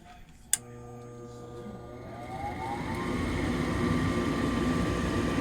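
A sharp click, then a gas furnace's motor starting up: a whine that rises in pitch as it spins up and settles into a steady hum with a rush of air, the start of the heating cycle before the igniter comes on.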